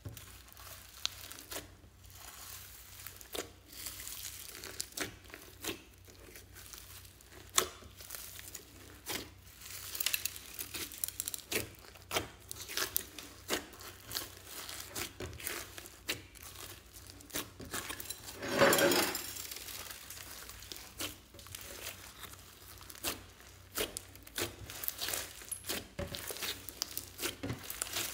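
Slime mixed with foam beads being squished, folded and stretched by hand, giving irregular wet squelches, small pops and crackly crunches from the beads. One longer, louder squelch comes about two-thirds of the way through.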